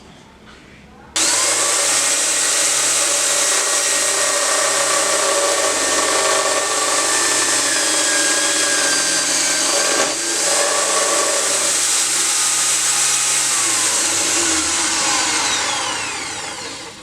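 An electric power tool switched on abruptly, running steadily at full speed with a high whine, then switched off near the end and winding down with falling pitch.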